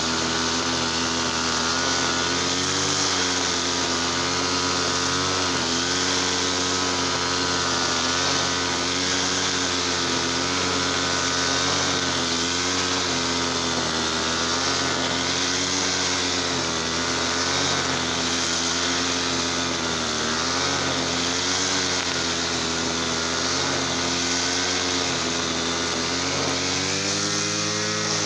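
TL33 brush cutter's small two-stroke engine running steadily at high speed, its pitch dipping and recovering a little.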